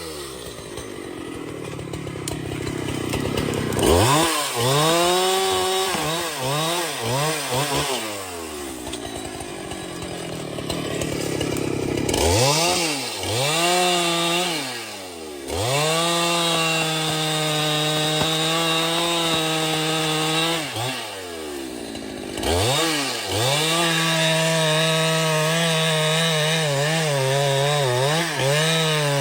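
Chainsaw engine revved in quick bursts, rising and falling several times, then held at full throttle for several seconds twice, cutting into wood, with short drops back toward idle between the cuts.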